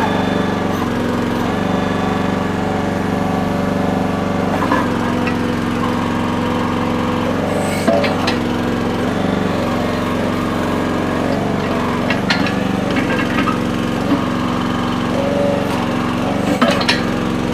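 Small gasoline engine of a Red Rock mini backhoe running steadily while its controls are worked. The engine note shifts briefly a couple of times, and a few short knocks and clanks come from the machine.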